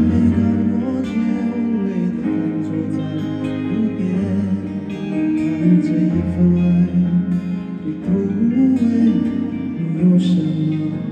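Live band playing an instrumental passage of a rock ballad, with strummed acoustic guitar and electric guitar.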